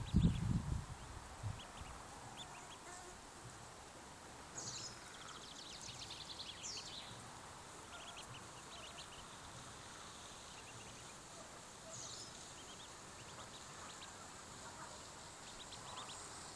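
Faint high-pitched peeping of mallard ducklings in short scattered clusters, over a steady outdoor hiss. A few low thumps come in the first second.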